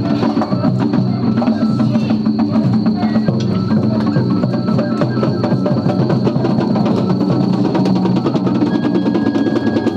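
Japanese festival float music (ohayashi): taiko drums beaten in a fast, steady rhythm with sharp wooden clicks. A high held tone enters near the end.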